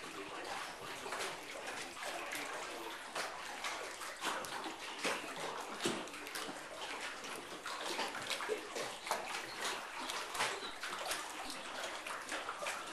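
Lake water lapping and sloshing in a boathouse slip, an irregular patter of small splashes against the pilings and walls.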